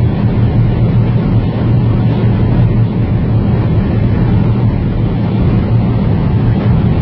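Mercedes-AMG C63 driving at high speed: a steady, loud low engine drone mixed with road and wind noise, holding a constant pitch with no revving.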